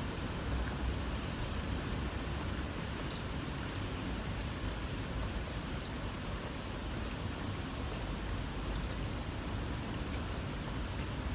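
Light rain falling steadily, a soft even hiss with scattered faint drip ticks over a low rumble.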